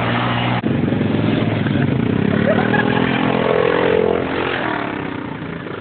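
Quad bike (ATV) engine running while riding. Its pitch climbs as it speeds up from about two seconds in, then eases off near the end.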